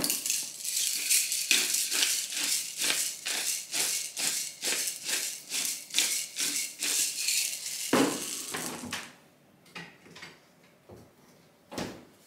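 A spice dispenser being worked to add salt and pepper: a regular run of short rattling strokes, about two or three a second, that stops about nine seconds in, with a louder knock just before it stops and another near the end.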